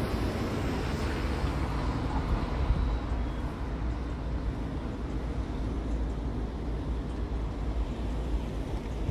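Steady outdoor noise with a heavy, fluttering low rumble: wind buffeting the microphone over the general hum of the city.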